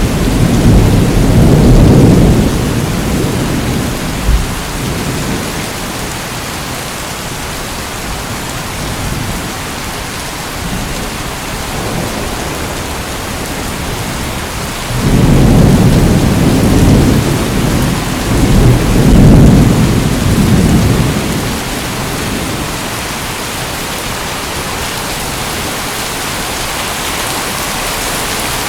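Steady heavy rain hissing, with thunder rumbling low twice: once at the start, fading after a few seconds, and again about halfway through for several seconds.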